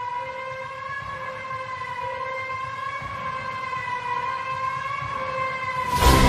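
Background music: one held, siren-like tone that wavers slightly and swells steadily louder, with the full soundtrack crashing in just before the end.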